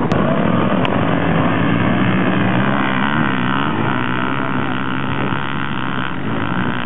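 Two dirt bike engines revving hard as the bikes accelerate side by side up a steep grass slope, their pitch rising and falling.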